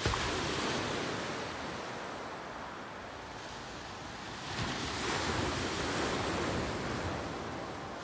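Sea waves breaking and washing up the shore. One breaks right at the start and fades, and a second, longer one swells about four and a half seconds in.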